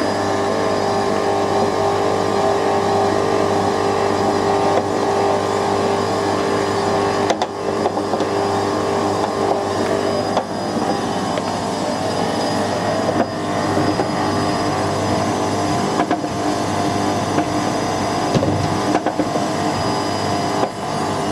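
Whirlpool WWDC 7210/1 washing machine running with its drum turning: a steady motor hum, broken by a few sharp knocks from objects tumbling in the drum.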